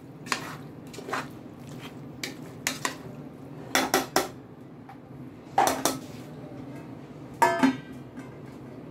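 Metal cookware clanking: a steel pot lid and utensils knocked and set down in a series of separate clinks, with the loudest in the middle and one that rings briefly near the end.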